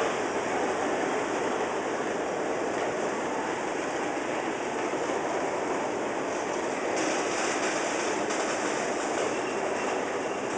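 Freight train of boxcars rolling past: a steady rumble and rattle of wheels on the rails, with a brief brighter hiss about seven seconds in.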